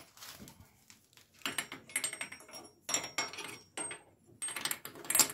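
Metal hand tools clinking and clattering as a wrench and socket are picked from a pile of tools and handled, in irregular spells of clatter with short metallic rings.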